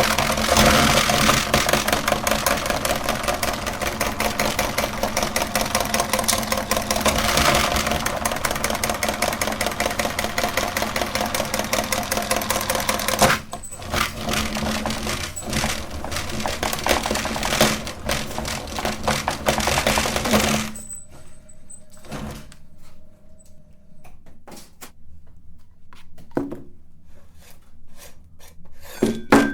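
Electric meat grinder running, its motor humming under a dense crackle of candy being crushed. The sound thins out about 13 seconds in and the motor stops about 21 seconds in, followed by scattered clicks and knocks.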